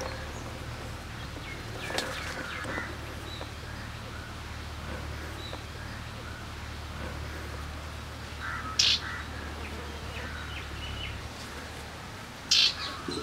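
Small birds chirping in the background, with short high calls scattered throughout over a low steady hum. Two brief, louder, sharp high-pitched sounds stand out, one about nine seconds in and one near the end.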